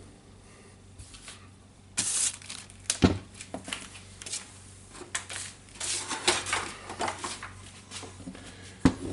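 Hands working on tool parts: scattered clicks and knocks with a short rustle, as the brushes and main cable are fitted into a rotary hammer drill's handle housing.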